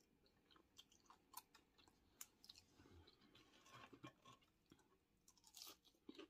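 Faint chewing of food with the mouth closed, a scattering of small soft mouth clicks and smacks.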